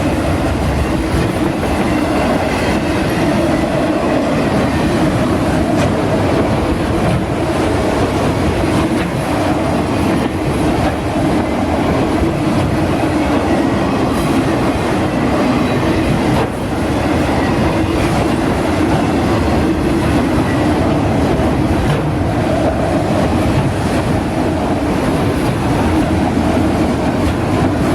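Autorack freight cars of a CSX train rolling past: loud, steady steel wheel-on-rail noise from the passing cars.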